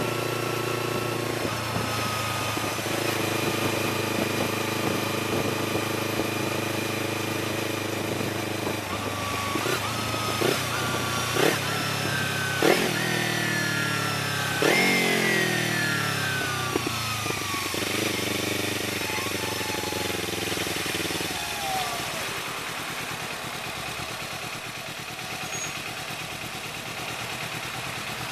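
Kawasaki Ninja 300's parallel-twin engine running under way. Partway through, its revs fall in several steps, with short sharp peaks at the gear changes as the bike slows. It then runs low and quieter near the end.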